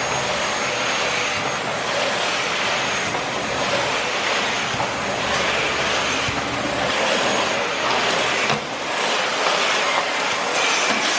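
Vacuum cleaner running, its hiss swelling and easing every second or so, with a brief dip about eight and a half seconds in.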